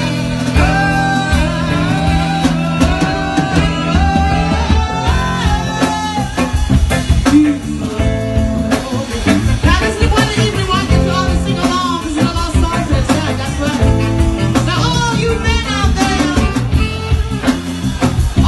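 Live band playing an upbeat song: a woman's lead voice and saxophone lines over electric guitar and drum kit, with a steady beat.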